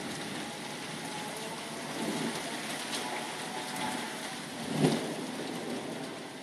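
Steady rain falling during a thunderstorm, with a sharp louder thump about five seconds in.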